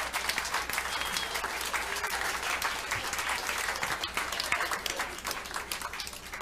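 An audience applauding with dense, steady clapping that begins to thin out near the end.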